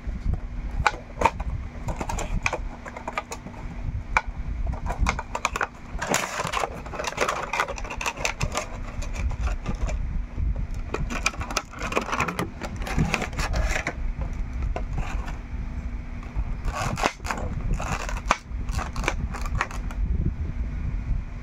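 Unboxing a Funko Pop vinyl figure: the cardboard box and its clear plastic insert being handled, with irregular clicks, scrapes and crinkling, in longer crinkly stretches about six, twelve and seventeen seconds in.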